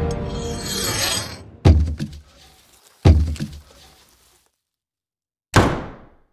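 Music fading out over a rising hiss, then two heavy thuds about a second and a half apart, each followed by a few smaller rattling knocks, and a single sharp hit near the end.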